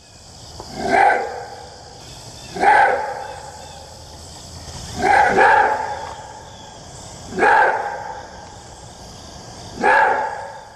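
A dog barking single, evenly spaced barks, with two quick barks in the middle, over a steady hiss.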